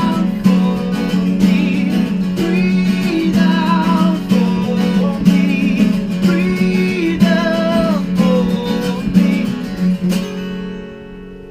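Acoustic americana band playing unplugged: strummed acoustic guitar with a wavering melody line on top. The music stops about ten seconds in, leaving the last chord ringing out.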